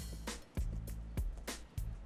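Background music with a steady beat over a held bass line.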